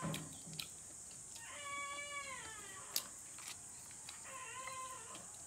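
A cat meowing twice: a longer call that rises and falls, then a shorter one a couple of seconds later, with a single sharp click between them.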